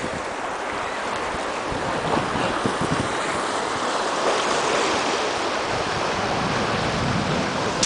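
Small sea waves washing in the shallows, a steady hiss that swells slightly midway.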